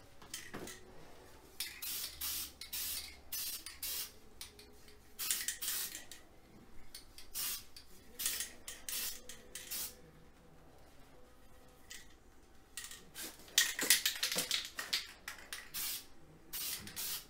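Aerosol can of gray etching primer spraying in many short hissing bursts as light fog-coat passes are laid on, with a pause of a couple of seconds about ten seconds in.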